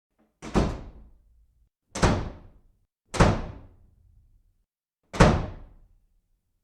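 Four heavy thuds, each sudden and fading within about half a second, irregularly spaced about one to two seconds apart.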